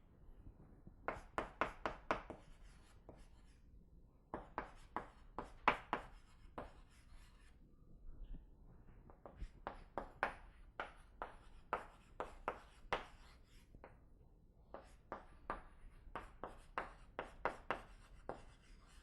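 Writing on a board: four runs of quick, sharp taps and strokes, with short pauses between them.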